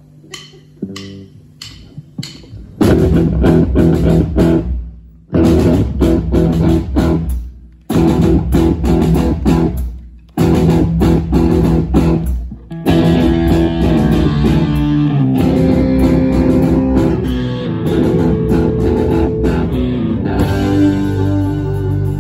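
A live rock band with electric guitars, bass and drums starting a song: a few even clicks count it in, then the whole band crashes in together about three seconds in. They play in stop-start phrases that break off briefly three or four times, then settle into a continuous instrumental groove.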